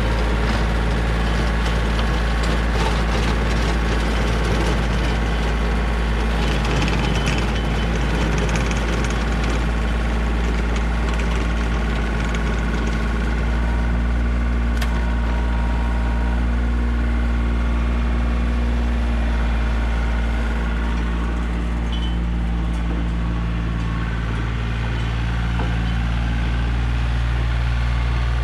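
Yanmar compact tractor's diesel engine running steadily.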